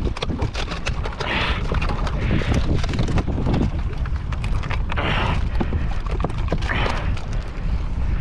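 Wind buffeting the microphone in a small aluminium tinny at sea, with water splashing against the hull in short hissing swells every second or two and scattered knocks in the boat.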